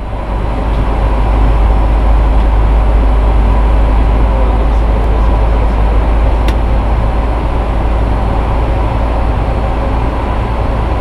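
Steady cockpit noise of a Sukhoi Superjet 100 airliner on approach: a deep, constant rumble of airflow and engines with a faint steady hum above it, fading in over the first second. A single faint click sounds about six and a half seconds in.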